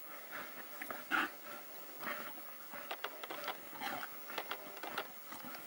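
African wild dogs calling during an attack on a wildebeest, with short, irregular high-pitched yelps and squeaks.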